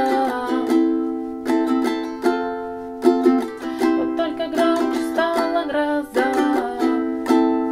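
Ukulele strummed through the song's Am–F–C–G chord progression, each strum left to ring out and fade before the next.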